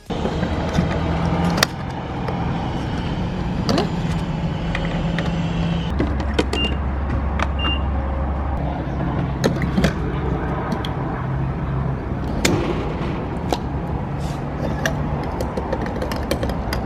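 Mini Cooper driving, heard from inside the cabin: a steady low engine and road hum, with scattered light clicks and knocks.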